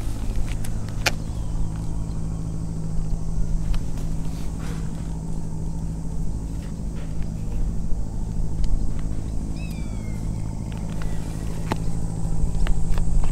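Steady low engine hum, a motor running at an even speed. Scattered small clicks, and a brief high falling chirp about three-quarters of the way through.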